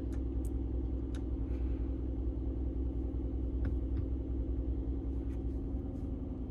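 Steady low rumble of a 2019 Mercedes-Benz G550 idling, heard inside the cabin, with a few faint clicks scattered through it.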